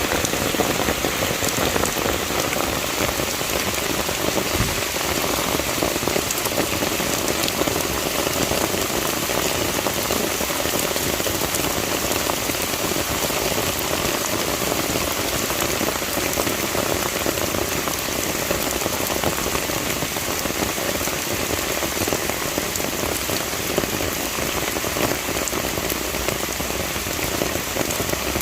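A steady, even hiss with fine crackling specks throughout, like rain falling.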